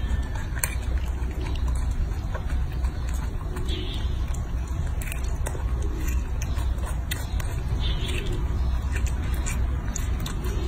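Baby monkey eating a peeled longan, chewing and smacking its lips with irregular wet clicks and smacks, over a steady low rumble.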